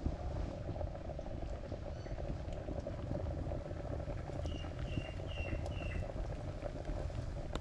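A pot of mutton curry boiling steadily, an even crackly bubbling. Past the middle there are four short high chirps in quick succession.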